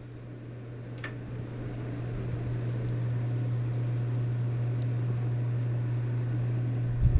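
Litex Vortex hugger ceiling fan running. It makes a steady low motor hum with air noise that grows louder over the first two seconds or so and then holds steady. There is a faint click about a second in.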